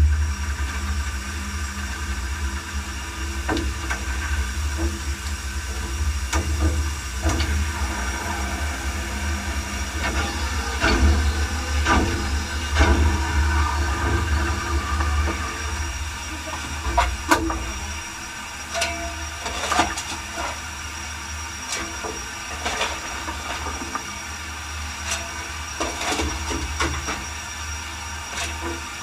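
Cab noise of the Peckett & Sons industrial steam locomotive Ashington No.5 running: a steady hiss of steam over a low rumble, with scattered clanks and knocks. The low rumble eases about eighteen seconds in.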